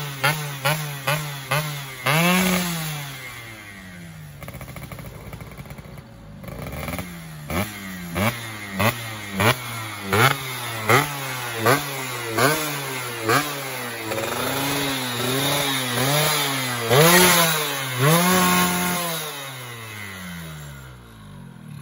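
Yamaha F1ZR two-stroke engine, bored to 116 cc and fitted with an RTX silencer on its stock expansion chamber, revved by hand on the stand while being tuned. Quick short throttle blips give way to a rising rev about two seconds in and a few seconds of idle. Then comes a steady run of sharp blips, about one every 0.7 s, and the revs are held higher before dropping back to idle near the end.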